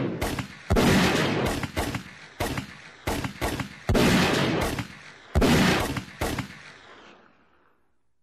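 A string of about ten gunshots at irregular spacing. The loudest three ring out with long echoing tails, and the last echo dies away about seven and a half seconds in.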